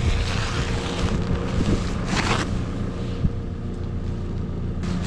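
An engine idles steadily under wind noise on the microphone. Plastic bale wrap rustles as it is pulled back, and there is a short, close sniff at the straw about two seconds in.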